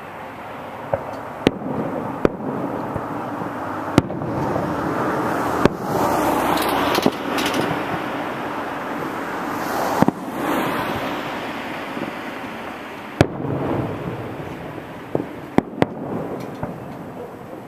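Distant fireworks going off: about eight sharp bangs at irregular intervals, over street noise that swells in the middle as a car passes.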